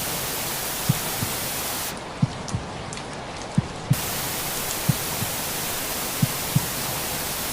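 Steady rain hiss with a slow heartbeat over it, each beat a soft low lub-dub pair, about one beat every 1.3 seconds. About two seconds in, the hiss thins and loses its highs for roughly two seconds, then returns to full.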